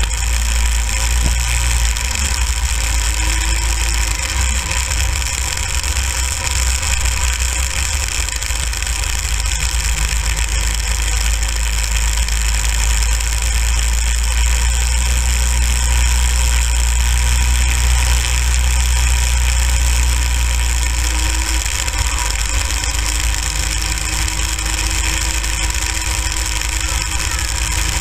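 Go-kart's small gasoline engine running while the kart drives over snow, its note slowly rising and falling with the throttle over a heavy low rumble.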